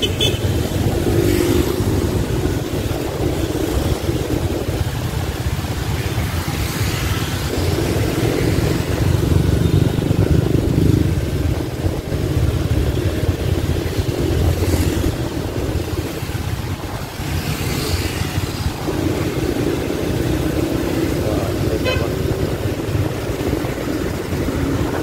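Road traffic noise while riding through city streets: engines running steadily, with occasional horn toots.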